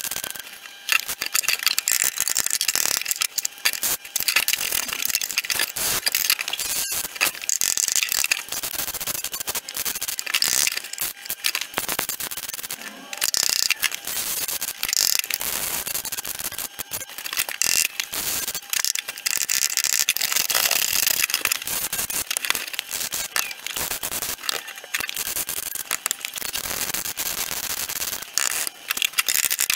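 MIG welder crackling as stitch welds are run into a car's rear floor panel, in bursts of a few seconds with short pauses between. The weld is fouled by old seam sealer burning and coming up through the seam from underneath.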